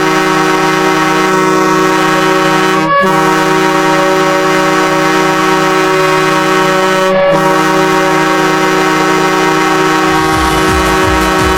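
Ice hockey goal horn sounding in long, steady blasts, broken briefly about three and seven seconds in. A pulsing electronic dance beat comes in under it near the end.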